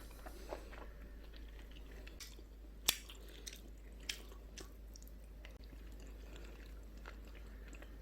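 Faint eating sounds: soft chewing with a few light clicks, the sharpest about three seconds in, over a steady low hum.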